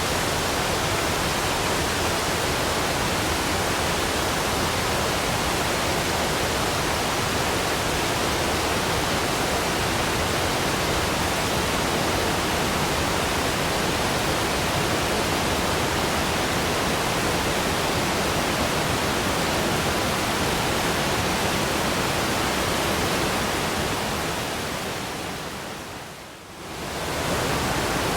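Waterfall rushing: a steady, dense hiss of falling water. Near the end it fades briefly and swells back.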